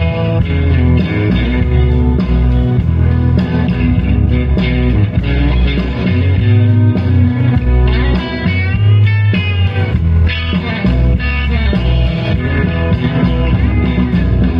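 Live country music in an instrumental break, without singing: acoustic guitar over a heavy bass, with a run of bending guitar notes a little past the middle.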